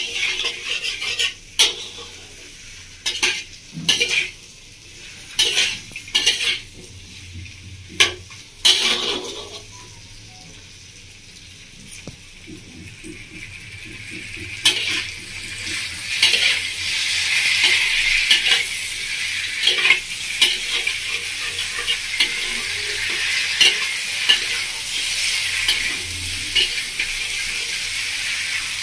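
Spatula scraping and knocking against a metal kadai while spiced mixed vegetables are sautéed in oil. At first there are separate scrapes; about halfway through, a steady frying sizzle grows louder under the stirring.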